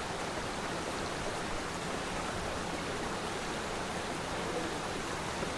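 Waterfall rushing with a steady, even roar of cascading water.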